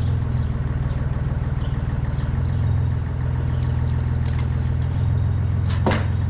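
Compact wheel loader's diesel engine idling steadily, with a sharp clank about six seconds in.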